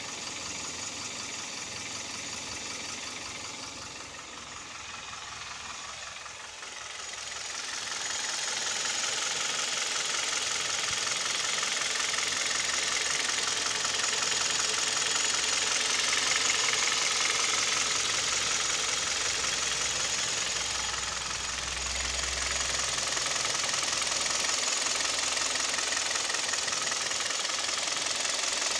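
Hyundai/Kia G4KD Theta II 2.0-litre four-cylinder petrol engine running with a rapid knock, which the owner takes for piston knock. It gets louder from about eight seconds in.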